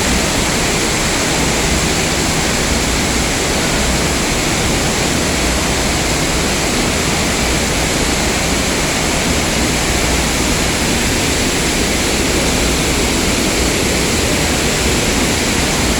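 Waterfall pouring, a loud, steady rush of falling water with no change.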